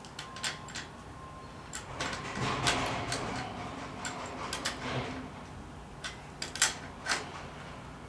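Small metal clicks and taps of an adjustable wrench being set on and turned on a bicycle V-brake's cable anchor bolt, with light rustling of the brake cable. The clicks come irregularly, the sharpest knock about six and a half seconds in.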